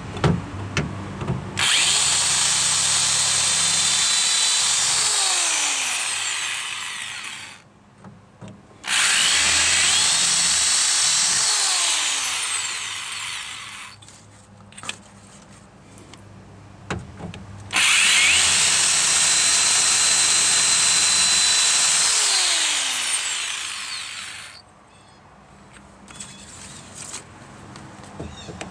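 Power drill boring out the door handle's rivets through their centres, in three long runs of several seconds each, each trailing off as a rivet head comes free, with small knocks and handling in the pauses between.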